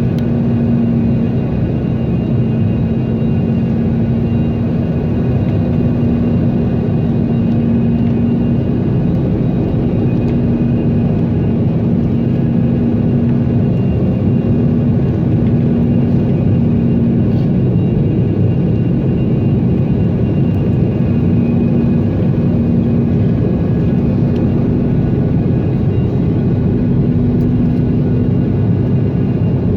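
Steady in-flight cabin noise of a Sukhoi Superjet 100: the rush of air and drone of its SaM146 turbofans, with a constant low hum and no change in level.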